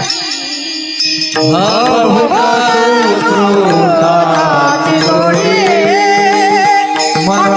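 A woman singing a long, wordless, ornamented melodic line in devotional kirtan style, with wavering vibrato at first and then long held notes that bend up and down. A steady drone note sounds underneath.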